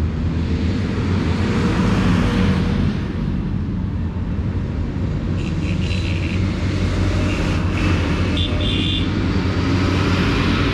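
Diesel tractor engines running steadily as tractors approach along the road, with a blue New Holland tractor driving past near the end. The engine rumble sits under a haze of road noise. A few brief high tones sound in the second half.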